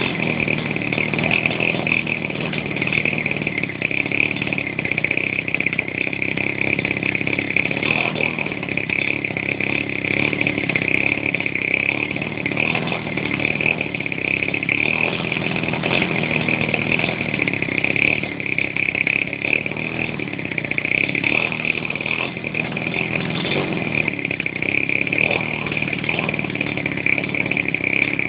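Fuji 50cc single-cylinder two-stroke petrol engine of a large RC model plane running steadily, turning its propeller at an even speed.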